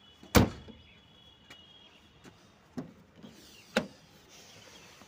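A car door slammed shut once, sharply, about a third of a second in, followed by two lighter thuds.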